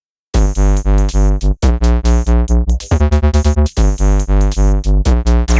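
Electronic background music: synthesizer chords over a pulsing bass beat, starting abruptly just after the beginning.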